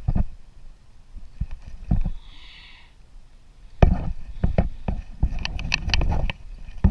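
Irregular knocks and clicks, thickening into a quick clatter of clicks over the last couple of seconds, with a short hiss about two seconds in.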